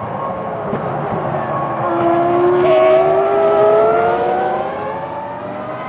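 Formula One car's 3.0-litre V10 engine accelerating, its high-pitched note rising steadily over several seconds and growing louder midway.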